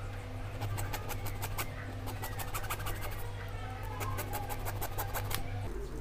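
A thin blade cutting and shaving a plastic toothpaste-tube cap gives a quick, irregular run of scratchy clicks and scrapes. Under it runs a steady low hum that stops near the end.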